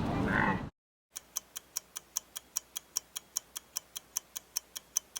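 A camel's call ends in the first moment, then after a brief silence a clock ticks steadily, about five ticks a second, as a quiz countdown.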